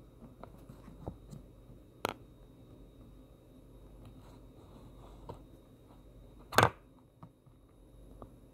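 Quiet handling noises: scattered light clicks, a sharp click about two seconds in, and a louder, short crackle about six and a half seconds in.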